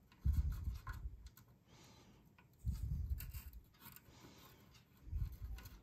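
Soldering iron tip and copper desoldering braid scratching and clicking faintly on a circuit board's solder pads as old solder is wicked off. Three dull low thumps come through, about a second in, near three seconds and near the end.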